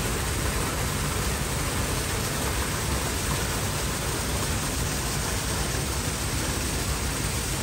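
Small garden waterfall spilling from a stone wall into a koi pond: a steady rush of falling water.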